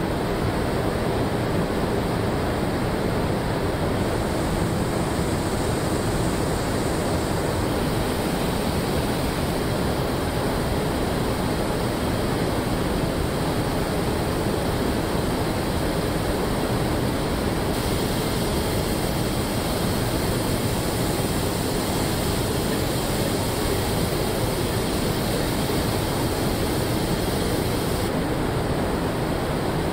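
Steady rushing air noise of a robotic car paint booth's ventilation, with no distinct machine rhythm; its hiss brightens slightly about eight seconds in and again near the end.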